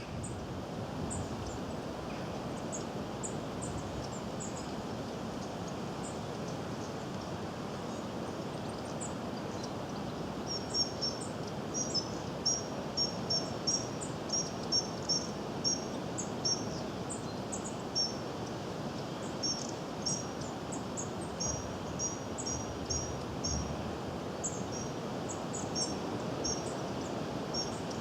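Goldcrest calling: very high, thin, short notes, scattered at first, then from about ten seconds in a quick run of paired notes repeated over and over. A steady low background rush runs underneath.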